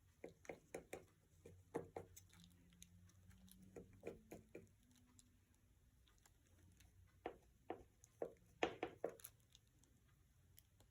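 Near silence with faint, irregular light taps and clicks from small hand work, most of them in a few short clusters.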